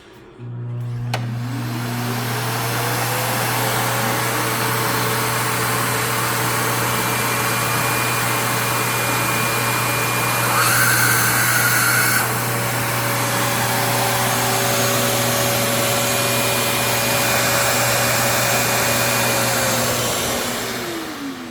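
LG A9S cordless vacuum's motor switching on and spinning up with a rising whine, then running steadily with a low hum and rushing air. About halfway through, the airflow briefly grows louder and brighter for a couple of seconds. Near the end the motor is switched off and the whine falls as it winds down.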